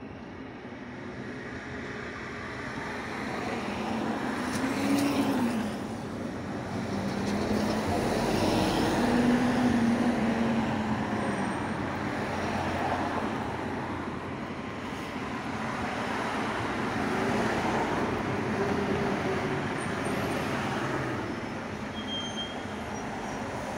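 Road traffic passing through a city junction, with tyre and engine noise building and fading in several swells. The loudest swells come about five and nine seconds in.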